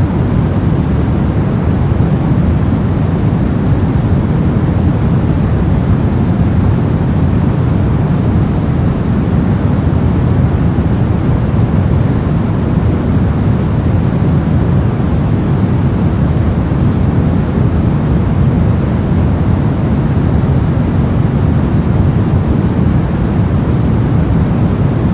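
Brown noise: a loud, steady, unchanging hiss, deep and muffled, with most of its weight in the bass.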